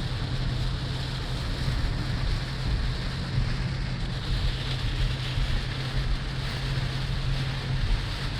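Heavy rain beating on a moving car, heard from inside the cabin as a steady hiss over a low, steady road-and-engine hum.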